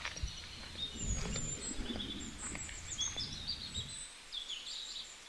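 Small birds chirping and twittering in quick, high notes over outdoor background noise. Low thumps and rustling sound through the first four seconds, then stop.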